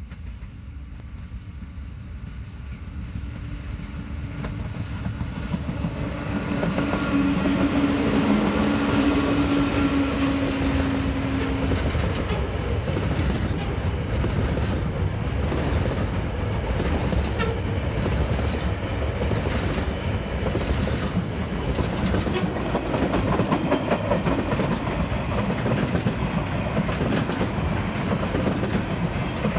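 TasRail freight train led by two diesel-electric locomotives passing: the locomotives grow louder on approach and go by with a steady low tone. The empty container and log wagons follow, clicking rhythmically over the rail joints.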